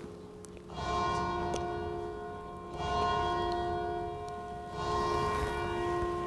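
A bell struck three times at the elevation of the host after the consecration, the strokes about two seconds apart, each ringing on and fading before the next.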